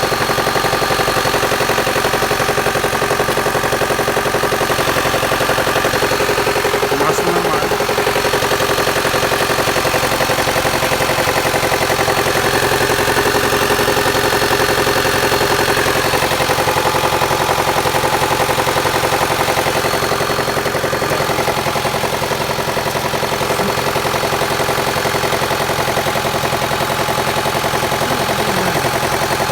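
Mitsubishi 4B12 2.4-litre MIVEC four-cylinder engine idling steadily with a regular knock, a noise whose cause the owner does not know.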